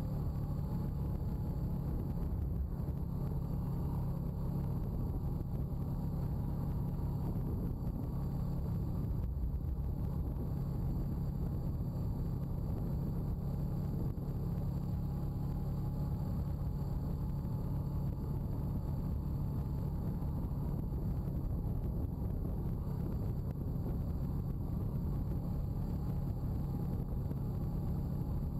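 Honda ATV's single-cylinder four-stroke engine running at a steady speed while the quad rides along a dirt track. The engine hum stays even throughout, with no big revs or stops.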